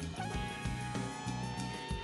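Background music with a steady beat, guitar to the fore.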